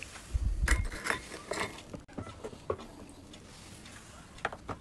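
Light handling noises from hands working with soaked biscuits and a plastic box: a few scattered short clicks and taps, with a low bump about half a second in.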